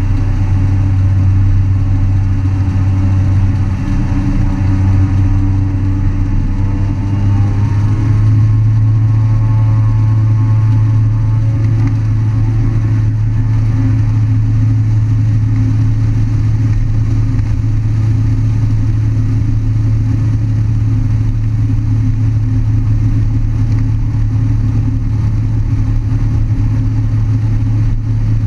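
Pratt & Whitney turboprop engine and propeller of a Thrush crop-duster running loudly, heard from inside the cockpit. Its pitch rises about eight seconds in, then holds steady.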